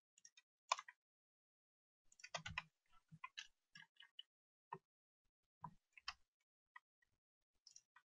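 Faint, irregular clicking of a computer mouse and keyboard, a cluster of quick clicks about two and a half seconds in and single clicks spread through the rest.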